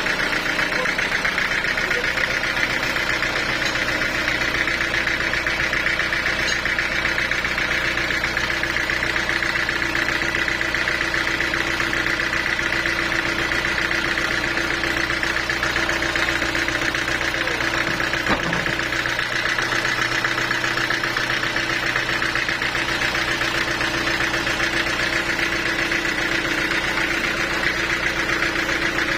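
Sawmill machinery running steadily, a constant mechanical drone with a steady hum and a high whine that does not change.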